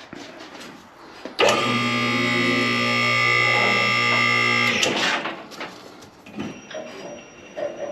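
Electric hydraulic pump motor of a two-post car lift running with a steady buzzing hum for about three seconds, starting and stopping abruptly. Scattered clicks come before it, and a faint high steady whine follows near the end.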